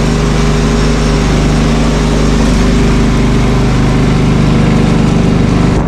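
John Deere 240 lawn tractor's engine running steadily with its front snowblower engaged off the PTO. The engine note shifts slightly about two and a half seconds in.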